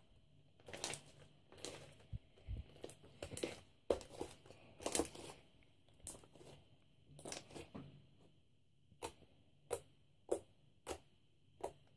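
Stiff slime being stretched and squeezed by hand, giving a string of irregular sharp clicks and pops as air pockets and bubbles in it burst.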